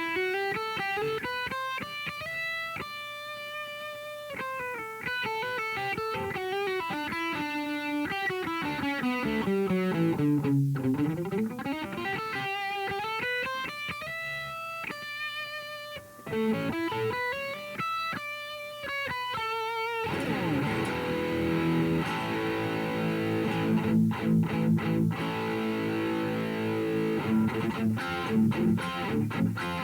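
Electric guitar played through a Revv G3 preamp/distortion pedal. For about twenty seconds it plays fast single-note runs and sweeping melodic lines. Then it switches abruptly to a thicker, heavier sound with chords and choppy riffing.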